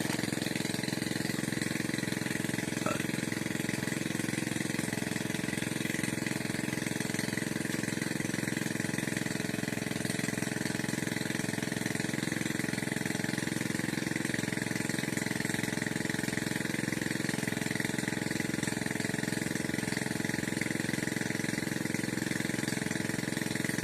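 Small engine-driven water pump running steadily, an even mechanical drone with a constant hum.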